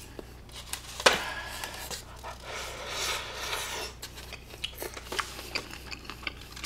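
Quiet eating sounds: wooden chopsticks clicking and scraping against plastic takeout containers while picking up and dipping grilled pork belly, with a sharp click about a second in, a soft rustle in the middle, and chewing with small crisp ticks near the end.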